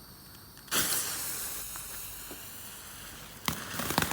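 Small consumer fountain firework going off: a hiss starts abruptly about a second in and carries on steadily, and about three and a half seconds in dense crackling pops join the spray.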